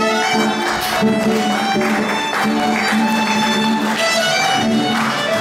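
Instrumental music with a violin-like lead playing changing notes over a steadily repeated low note.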